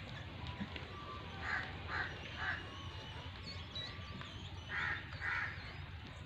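A crow cawing: three harsh caws about half a second apart, then two more near the end. Faint small-bird chirps and a steady low rumble lie underneath.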